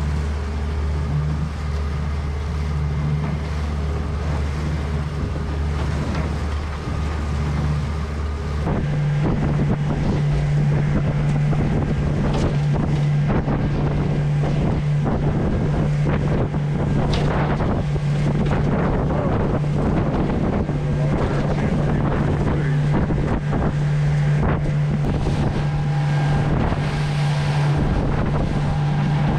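A boat's 75-horsepower outboard motor running at cruising speed, with wind buffeting the microphone. About nine seconds in the sound changes abruptly, and from then on frequent knocks and splashes of the hull slapping through the chop sit over the steady engine drone.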